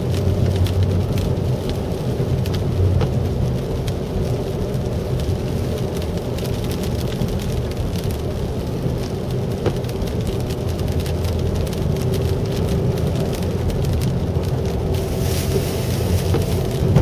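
Car cabin noise on a wet road in the rain: a steady engine and tyre rumble, with raindrops ticking on the windshield. A brief louder hiss comes near the end.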